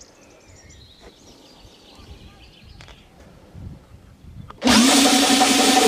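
Faint distant shouting from footballers practising. About four and a half seconds in, loud electronic music cuts in abruptly.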